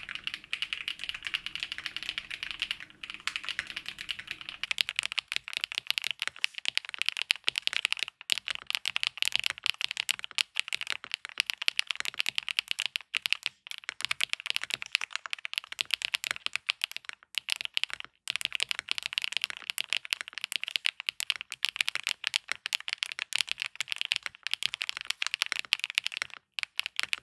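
Continuous fast typing on a Chosfox Fox65 mechanical keyboard built all-foam on an FR4 plate with Chosfox White Fox switches and PBT keycaps: a dense run of keystrokes with a sound like rolling gravel, broken by a few short pauses.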